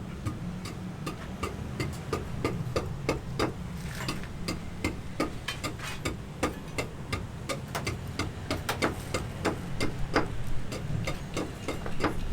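Hand hammer knocking in quick, irregular strokes, several a second, over a low steady rumble.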